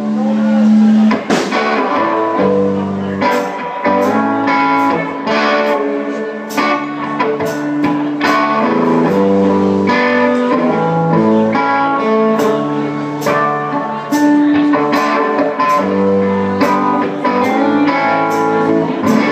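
Live band music led by guitar, with chords changing every second or so over a regular beat.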